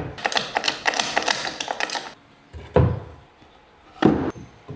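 Carpentry work on stair posts: a quick run of sharp taps and clicks for about two seconds, then a heavy wooden thud and, about a second later, another knock.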